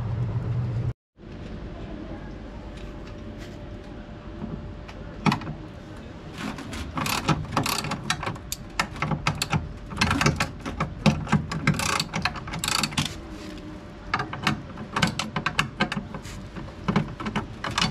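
Irregular clicking and clattering of hand tools and metal and plastic parts as a top-loading washing machine's suspect part is taken apart, the clicks coming thicker from about five seconds in. A steady low hum fills the first second before a brief cut in the sound.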